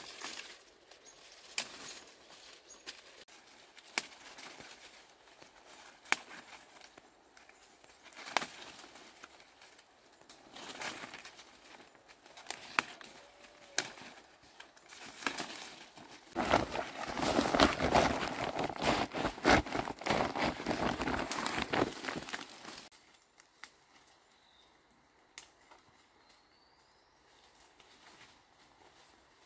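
Leaves and stems rustling, with scattered sharp snaps, as leaves are picked by hand from the bushes. Past the middle comes a louder, dense stretch of rustling lasting about six seconds, then only faint rustles.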